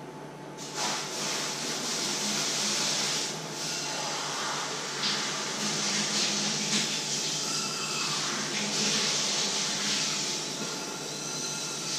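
Stovetop kettle coming to the boil: a steady rushing hiss of steam through the whistle, starting suddenly about a second in, with a thin high whistle tone beginning to sound faintly in the second half.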